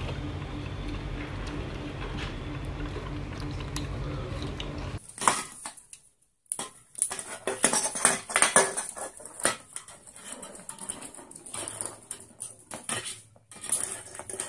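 A sun conure knocking and pushing an aluminium drink can across a wooden floor with its beak: a run of irregular clattering knocks and rattles from the can. For about the first five seconds only a steady low hum is heard, then it cuts off.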